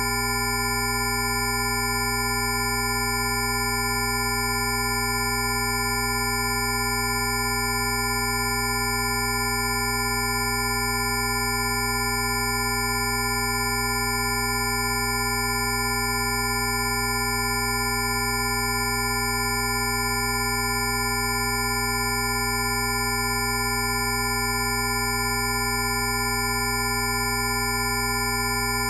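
Rife frequency tones: many steady electronic sine tones sounding together at once, from a low hum up to a thin high whine, each held at a fixed pitch with no rhythm.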